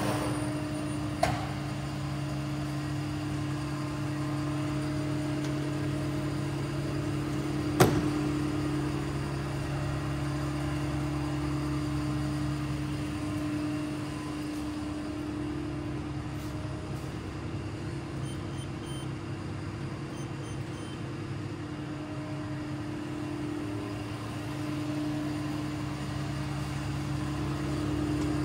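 Polar 155 ED guillotine paper cutter switched on and standing idle, its motor giving a steady hum. A short click about a second in and a sharp knock about eight seconds in.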